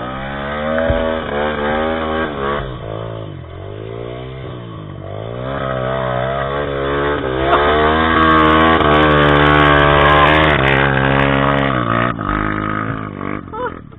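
Trail motorcycle engine revving, its pitch rising and falling several times, then held high and loud for about six seconds before dropping off near the end.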